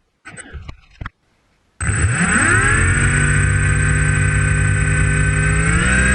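A few brief clicks and rustles, then about two seconds in a tricopter's electric motors and 11x4.7 inch props start suddenly and spin up, settling into a steady pitched drone. The pitch rises again near the end as the throttle is raised.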